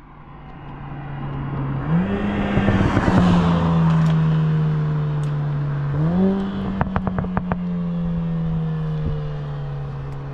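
Mercedes-AMG A45 S's turbocharged four-cylinder running through a modified exhaust, growing louder over the first few seconds. The engine note jumps up twice, about 2 s and 6 s in, as on downshifts, and the second is followed by a quick run of crackles and pops from the exhaust.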